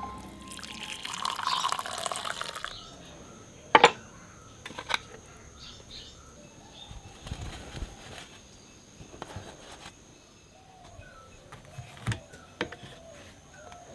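Tea poured through a mesh strainer into a cup for about two seconds, followed by a few sharp clinks and knocks of crockery set down, with faint chirps and a steady high thin whine behind.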